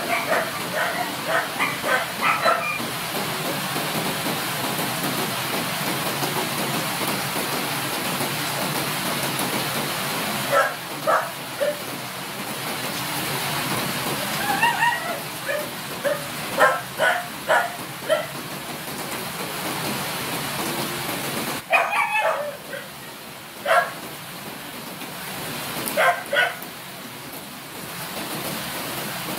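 Dogs barking in scattered clusters of short barks over the steady hiss of rain.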